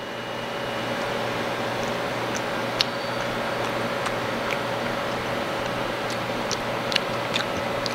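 Steady machine hum and hiss of room noise, such as a fan or ventilation, with a few faint clicks of someone chewing a slice of summer sausage.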